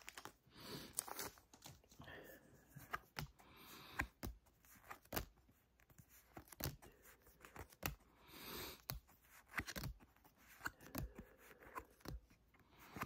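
Faint handling of a stack of Pokémon trading cards, flipped one at a time: soft swishes of cards sliding over each other, with scattered light taps and clicks.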